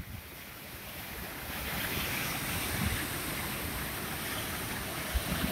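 Bhagirathi river water rushing steadily through a narrow, water-carved rock channel and churning into a pool. It grows louder over the first couple of seconds, then holds steady.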